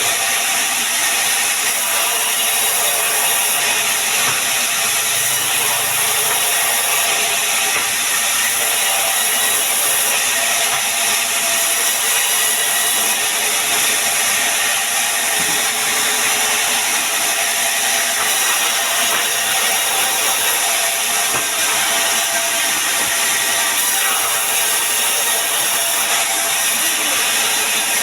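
Sawmill machinery running, a loud, steady mechanical noise that holds even without a break.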